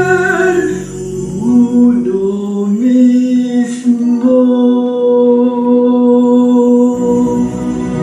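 A voice singing long held notes with quiet musical backing, stepping up in pitch twice, the last note held for about four seconds. A short click sounds near the middle.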